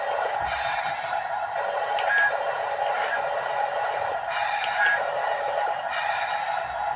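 Background music, with sections that change every second or two and a few short high notes.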